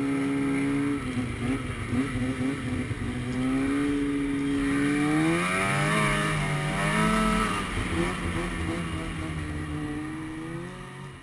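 Polaris IQ 600 snowmobile's two-stroke engine running at trail speed. It revs up about halfway through, settles, then fades near the end.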